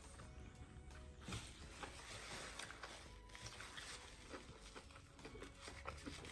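Faint biting and chewing of a Popeyes blackened chicken sandwich, with a stretch of soft rustling and crunching about a second in and small scattered clicks of the mouth.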